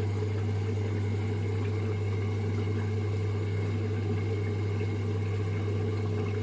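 LG F2J5WN3W front-loading washing machine running with a steady low hum and no rhythm, while it is in suds lock: the fault state in which too much suds keeps the drum from spinning.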